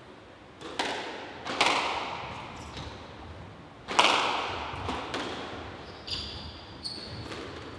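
Squash rally: the ball is struck by the racquets and smacks off the walls in about seven sharp cracks at an uneven pace, each echoing round the court, the loudest about four seconds in. Short high squeaks of shoes on the wooden court floor come near the end.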